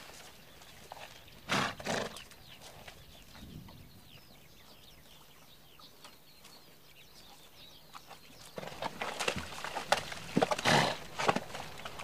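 Wild horses: a loud burst of horse noise about a second and a half in, then a quieter stretch. Hooves start clopping and stamping about two-thirds of the way through, with more loud horse calls among them.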